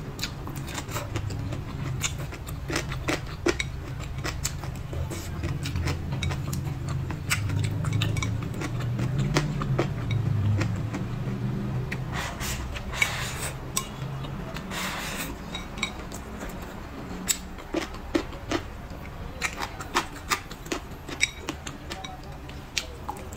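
Eating sounds: wooden chopsticks clicking and scraping against a ceramic rice bowl, many small sharp clicks. About halfway through comes a longer scraping, shoveling stretch as rice is pushed from the bowl held at the mouth.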